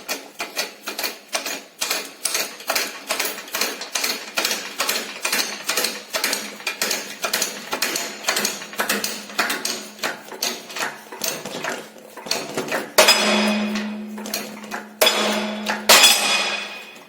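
Shop press forcing a worn ball joint out of a steel control arm: quick repeated metallic clacks, about three a second, then a louder drawn-out creak with a steady hum and a sharp bang near the end.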